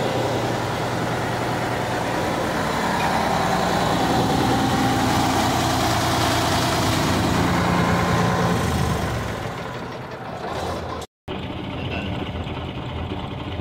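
A YaMZ-238 V8 truck diesel running steadily at idle, warm. It grows louder and brighter for a few seconds in the middle, then breaks off for an instant about eleven seconds in and carries on more quietly.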